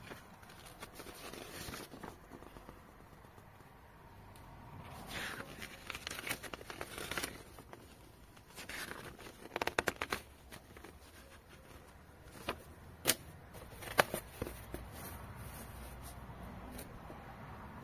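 Paper rustling and crinkling as a folded instruction booklet is opened and its pages turned, with a few sharp clicks and knocks from handling the drone's case in the second half.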